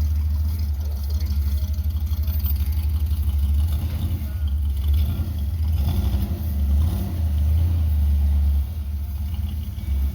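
A car engine running with a deep, steady low rumble that swells and eases, dropping back a little near the end.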